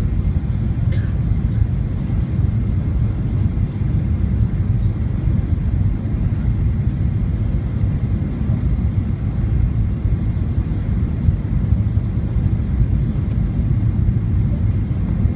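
Cabin noise of a Boeing 737-900ER on short final approach: a steady low rumble of the engines and airflow, heard from a seat over the wing.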